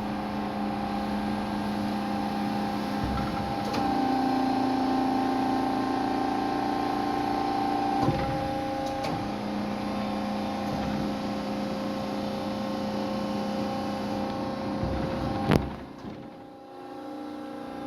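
Hyd-Mech H-22A automatic horizontal band saw running with a steady machine hum whose tones shift at about four and eight seconds in. A single sharp knock comes near the end, after which the running sound drops lower.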